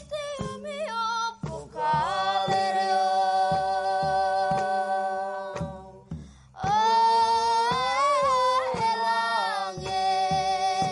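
A woman singing long held notes with a wavering pitch, breaking off briefly about six seconds in, over low soft thumps about twice a second.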